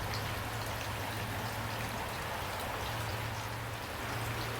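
Steady rain falling, an even hiss of many raindrops, with a low steady hum underneath.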